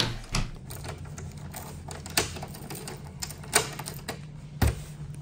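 Several sharp clicks and knocks at irregular intervals over a steady low hum.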